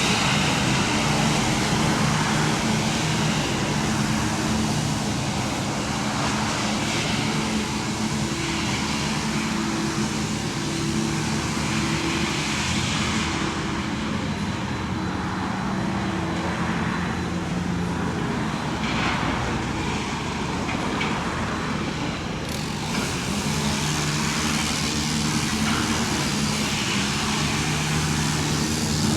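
Large demolition excavator's diesel engine running under working load. Its pitch steps up and down every few seconds as the hydraulics work, over a steady rumble with a few faint knocks.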